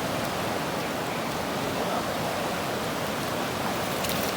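Steady rushing wash of shallow sea water at the beach's edge.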